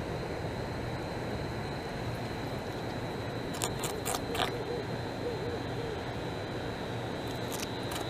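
Beaver gnawing bark off a log: short crisp crunching bites in a cluster about halfway through and again near the end, over a steady background hiss with a constant thin high tone.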